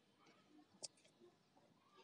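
Near silence: faint squishing of a hand mixing raw chicken pieces in a wet spice marinade in a bowl, with one short, sharp click a little under a second in.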